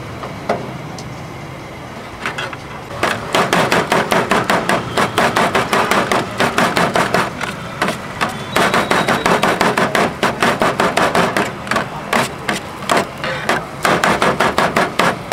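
Broad knife rapidly chopping chicken shawarma filling on a steel griddle tray: sharp blade-on-metal strikes about four or five times a second. The chopping starts about three seconds in and pauses briefly near the middle.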